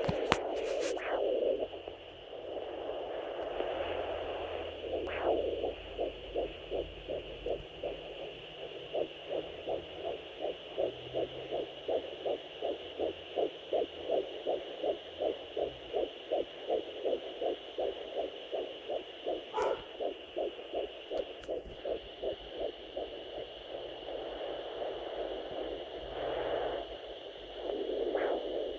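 Home Doppler fetal monitor picking up a 12-week fetal heartbeat: fast, regular whooshing pulses, about two to three a second, through most of the middle. At the start and again near the end the pulses give way to a windy whooshing, which is the placenta's blood flow.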